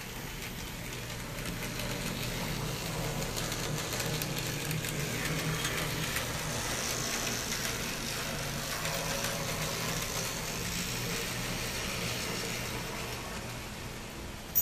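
N-scale model tram running on its track: a steady whirring motor hum with wheel rattle, growing louder for the first couple of seconds and fading in the last few. A single sharp click at the very end.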